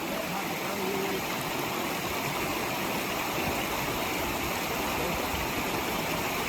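Steady, even rush of water pouring over a waterfall.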